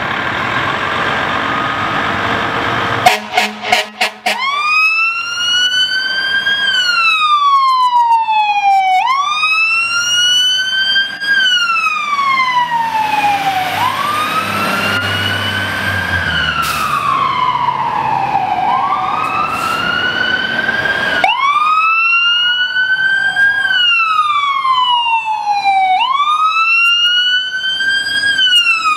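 Fire trucks' wail sirens rising quickly and falling slowly, in cycles of about four to five seconds, with two sirens overlapping out of step for a stretch in the middle. A few short loud blasts come about three seconds in, and deep truck engine rumble can be heard as the apparatus pass.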